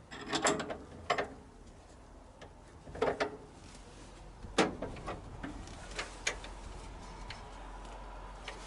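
Irregular short bursts of mechanical clicking and rattling, in several clusters a second or two apart, with a faint steady hum in the second half.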